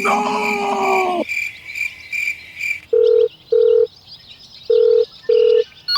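Telephone ringing tone heard over the line: two pairs of steady beeps in the second half, after a short run of faint, regular high beeps.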